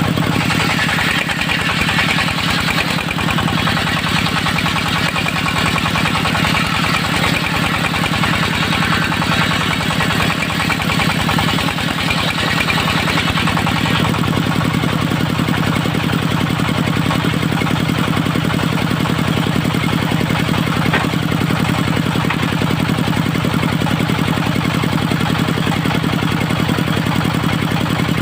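Diesel engine of a portable circular-saw sawmill running steadily at a constant speed. For about the first half, a brighter rushing noise rides on top of it and then stops abruptly.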